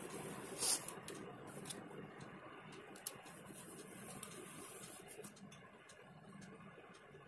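Faint rustle and scrape of a clothes iron sliding back and forth over cotton fabric, with a few light clicks; toward the end, the soft handling of cloth as it is folded by hand.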